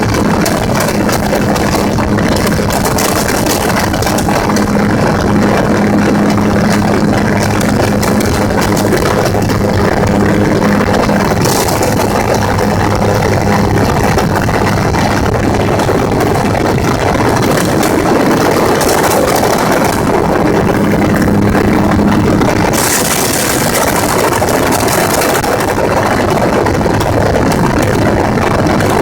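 Gyrocopter engine and propeller running steadily in flight, with a constant rushing hiss that grows stronger for the last few seconds.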